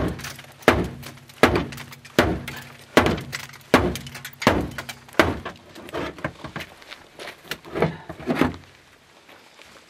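Boker Vox T-Hawk carbon-steel tomahawk chopping repeatedly into a car's painted sheet-metal door: about a dozen hard metal impacts at a steady pace of roughly one every three-quarters of a second, each with a brief low ring from the panel, stopping about eight and a half seconds in.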